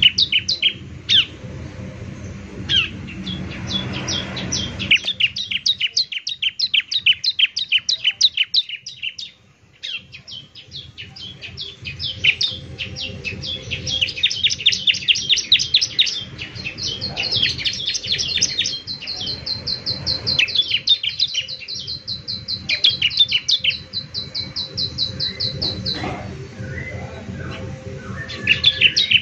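Bar-winged prinia (ciblek) singing: long runs of rapid, sharp high chirps, with a short lull about nine seconds in and a long, fast, even trill from about fourteen to twenty-six seconds. A low hum sits under the song in the first few seconds.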